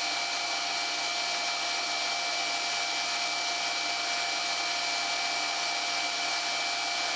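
Jet pump's electric motor running steadily with a constant whine, still pumping because its pressure switch has not yet cut it off.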